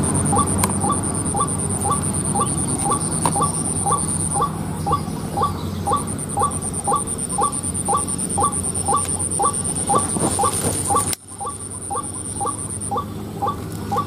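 White-breasted waterhen (ruak-ruak) calls repeated in a fast, even series of short notes, about three a second. A steady high-pitched whine runs above them and drops out briefly twice.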